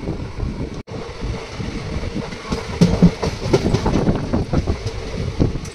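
Passenger train running, heard from an open coach doorway: a steady rumble with the wheels clattering on the rails. There is a brief cut in the sound about a second in.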